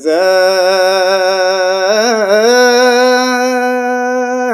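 A man's voice singing an Ethiopian Orthodox Christmas hymn (mezmur), drawing out one long held note that steps up in pitch about two seconds in, with a brief waver.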